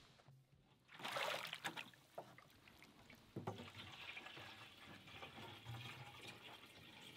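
Faint water sounds: a louder splash about a second in, then a soft, steady trickle with small drips.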